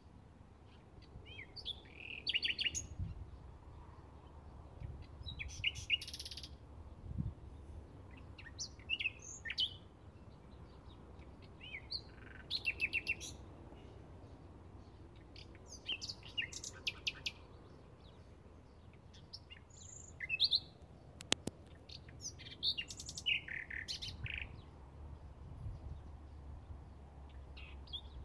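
Bluethroat singing from dense shrubs: short, varied phrases of quick repeated notes, one phrase every few seconds.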